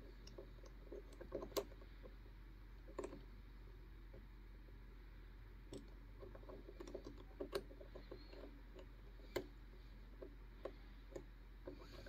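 Disc detainer pick working inside an Anchor Lås disc detainer padlock core. Faint, irregular small metal clicks and scrapes as the pick turns the discs under tension.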